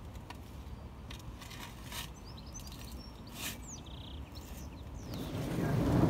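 Outdoor garden ambience with a low rumble, scattered soft clicks and rustles, and a few bird chirps about halfway through. Near the end the steady hiss of heavy rain swells up and becomes the loudest sound.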